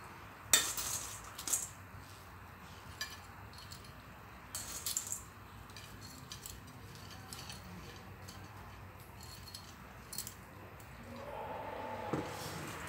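Metal tongs clinking against a stainless steel bowl and plate while lifting out crisp batter-fried enoki mushrooms. There are a few sharp clinks. The loudest comes about half a second in, and others follow after about a second, around five seconds and around ten seconds.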